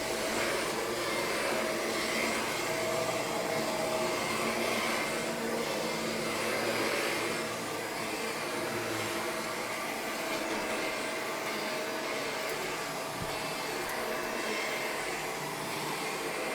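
Vacuum cleaner running steadily with its belt-driven brush roll engaged, being worked over carpet, with a faint steady tone over the even whoosh of its airflow.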